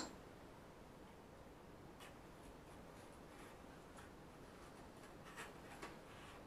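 Near-silent room tone with a few faint clicks and rubs from a small plastic camcorder and its wide-angle lens parts being handled, the clearest near the end.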